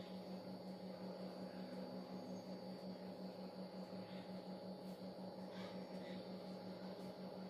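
A steady low hum that throbs evenly several times a second, with a faint thin whine above it.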